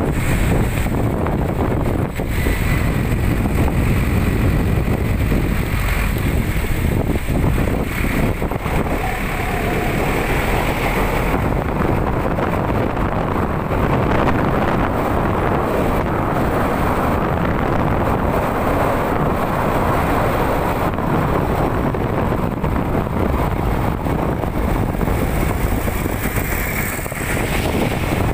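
Wind buffeting the microphone, mixed with the steady rumble of the truck's engine and tyres, heard from the open cargo bed of a moving truck.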